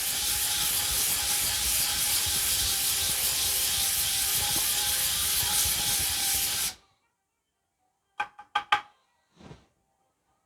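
Steady, loud hiss of a pressurized spray that stops abruptly about two-thirds of the way in, followed by a few faint clicks.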